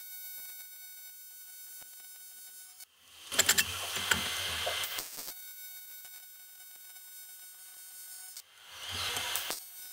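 AC TIG welding arc on an aluminium header tank, buzzing and crackling with a low hum. It comes in two bursts: one of about two seconds a few seconds in, and a shorter one near the end. A steady high whine sounds between the bursts.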